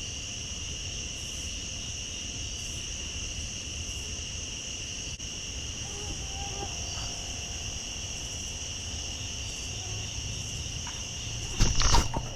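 Steady chorus of crickets or similar insects, a continuous high trill sounding at two pitches. Near the end comes a brief, loud burst of noise.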